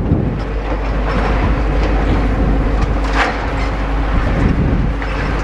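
Demolition excavator at work: a steady diesel engine rumble with rubble clattering, and a louder knock about three seconds in.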